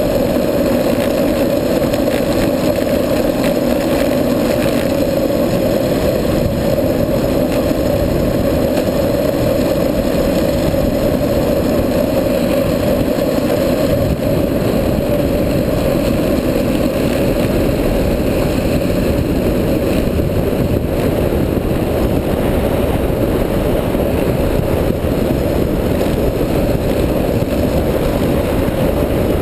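Steady roar of wind rushing over a helmet-mounted camera's microphone, mixed with the hum of a street luge's wheels rolling on asphalt at speed.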